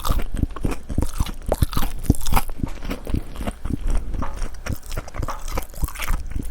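Close-miked chewing of crispy battered fried squid: a dense, irregular run of crunches and crackles, many a second.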